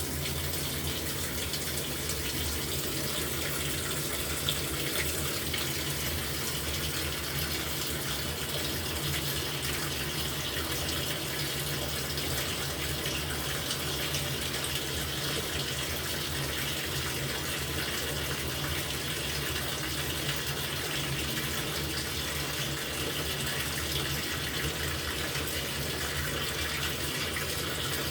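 LG top-loading washing machine filling its tub with water, a steady rush of running water with a low hum underneath, as at the start of the wash cycle.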